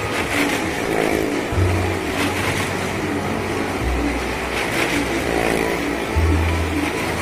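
Motorcycle engine running and revving inside a wooden-walled well of death, with a few short surges of throttle.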